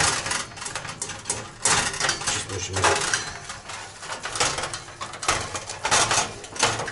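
Handling noises as marinade is brushed and rubbed by gloved hands onto raw lamb ribs in a metal baking tray: irregular rubbing with light clatter and knocks against the tray.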